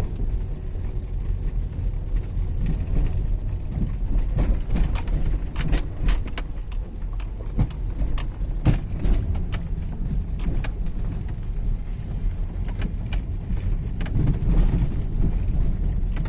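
Volvo V50 T5 driving over bumps, with a steady low rumble of road and engine noise. A run of sharp knocks and rattles sounds from about two and a half seconds in until about eleven seconds, and a few more come near the end. The knocking is from a worn, loose engine mount.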